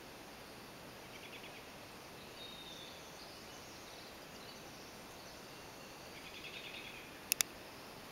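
Faint songbird trills and short whistles over a steady hiss of outdoor ambience: a trill about a second in and another near the end. Two sharp clicks close together near the end are the loudest sounds.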